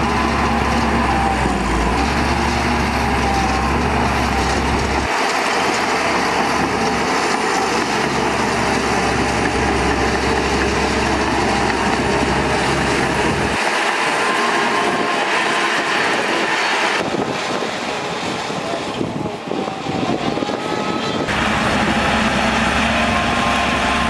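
Shantui DH17C2 bulldozer's diesel engine running steadily as the dozer pushes dirt. The sound changes abruptly a few times and is a little quieter for a few seconds past the middle.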